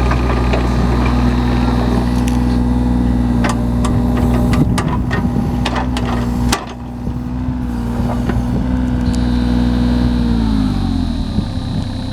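John Deere 35G mini excavator's Yanmar diesel engine running steadily, with several sharp knocks over a few seconds and a sudden drop in load about halfway. Near the end the engine speed falls as it is throttled down.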